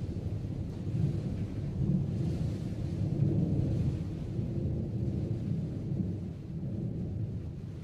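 Thunder rumbling in long swells that slowly fade near the end, over a faint hiss of rain.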